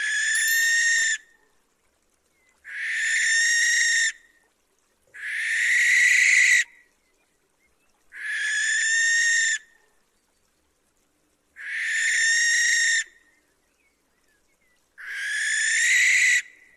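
Barn owl screeching: a series of long screeches, each about a second and a half, repeated roughly every three seconds, six in all with the first already under way.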